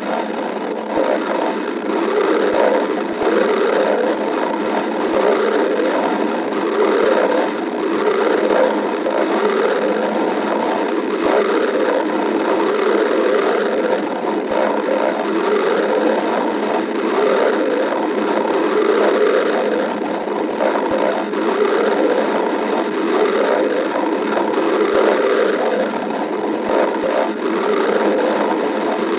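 A person's stomach growling from hunger: a continuous, unbroken gurgling rumble whose pitch wavers up and down.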